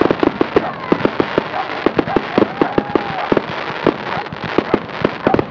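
Aerial fireworks bursting: a rapid, irregular string of sharp bangs and crackles, several a second, from many shells going off together.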